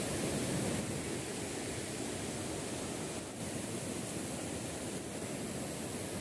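Steady rushing of a rocky mountain river running over rapids.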